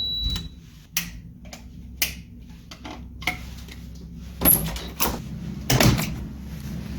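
Irregular sharp clicks and knocks, about six in all, over a steady low hum.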